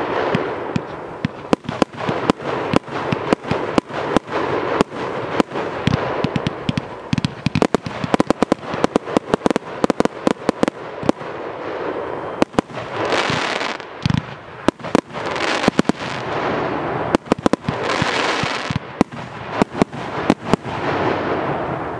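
Category 4 firework cake (Evolution Fireworks Luna 3) firing shot after shot: a rapid run of sharp bangs as the tubes launch and the shells burst. Swells of crackle from the bursting gold stars come several times in the second half.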